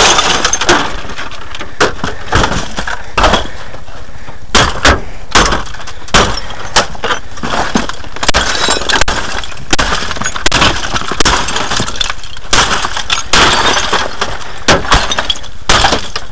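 Televisions being smashed in a steel dumpster: glass breaking and crashing in repeated, irregular strikes, about one or two a second.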